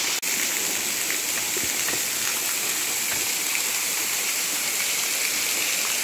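Steady rushing water of a waterfall, a dense unbroken hiss. It cuts out for an instant just after the start.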